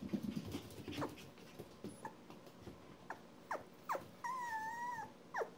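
One-month-old poodle puppies yelping with short, falling squeaks, then one drawn-out whine about four seconds in, with some rustling at the start.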